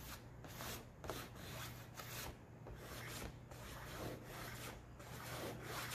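White chalk stroking across black poster board on an easel as lines are drawn: a faint run of short scratchy strokes, about two or three a second.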